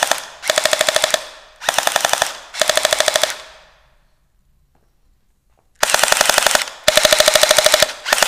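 CYMA airsoft electric pistols on 7.4 V LiPo batteries firing short full-auto bursts, each a rapid rattle of shots lasting under a second: four bursts, a pause of about two seconds, then three more.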